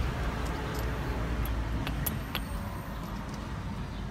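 Light metallic clinks of scooter belt-drive parts being handled as the clutch bell is fitted back on, with a few sharp clicks between about one and a half and two and a half seconds in, over a steady low rumble.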